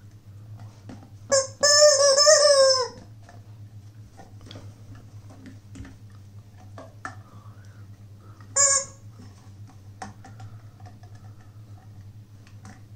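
Pink rubber squawking chicken dog toy being squeezed in a puppy's mouth. It gives a short squawk about a second in, then a long drawn-out squawk of over a second that falls in pitch at its end, and one more short squawk a few seconds later.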